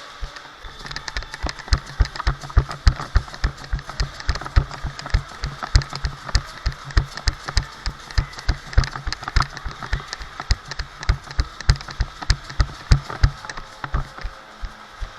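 Quick, even footsteps thumping on the camera microphone, about three to four a second, over a low hum.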